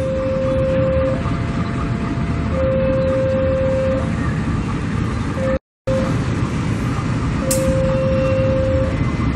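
Railway level-crossing warning alarm sounding its two-tone signal, a lower and a higher tone alternating every second or so, over the steady low rumble of a diesel locomotive hauling tank wagons. The sound drops out completely for a moment just past the middle.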